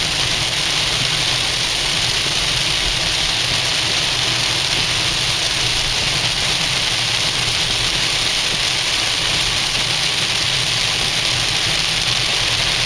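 Steady hiss of heavy rain on a car and its tyres on the wet road, with a low engine and road rumble underneath, heard from inside the moving car.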